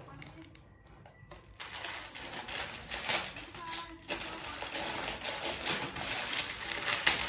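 Plastic packaging crinkling and crackling as a package is torn open and handled: rapid dense crackles that start about one and a half seconds in and keep on.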